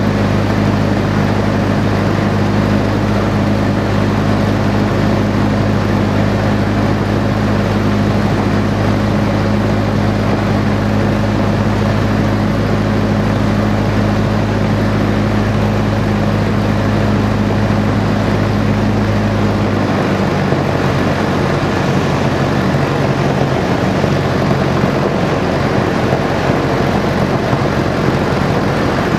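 de Havilland Chipmunk's piston engine and propeller running steadily in flight, with wind rush, heard from the cockpit. About two-thirds of the way through, the engine note drops to a lower pitch.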